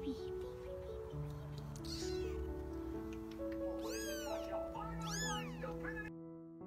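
Small kitten meowing: a few high cries about four seconds in and again a second later, over background music.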